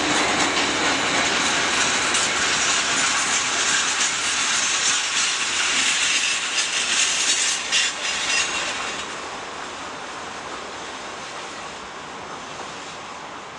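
Freight train of open box wagons rolling past on the rails: a steady rush of wheel noise with a few sharp clanks around seven to eight seconds in. The sound drops and fades from about nine seconds in as the train draws away.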